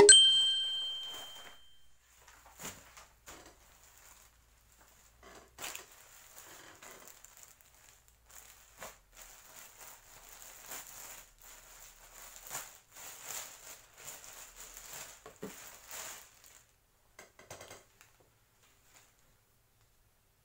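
A ringing musical note fades out over the first two seconds, then paper and plastic packaging rustle and crinkle in irregular bursts as wrapping is pulled out of a cardboard box and handled, stopping near the end.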